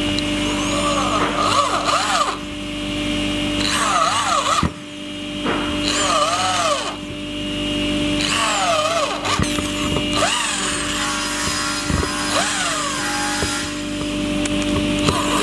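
Corded electric drill with a screwdriver bit driving screws into a wooden board. The motor winds up and runs down again and again, a string of short runs as the trigger is squeezed and eased, with a steady hum and a few sharp knocks between runs.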